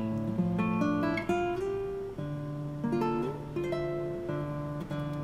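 Background music of acoustic guitar, with single notes plucked and left to ring one after another in a gentle melody.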